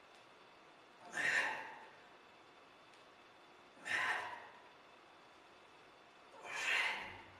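A person's breathing: three strong, short breaths, evenly spaced about three seconds apart.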